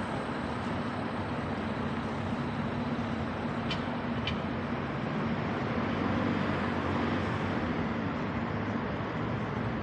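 Steady road traffic noise from cars on a wide multi-lane city road, with a low hum under it. Two short high chirps come about four seconds in.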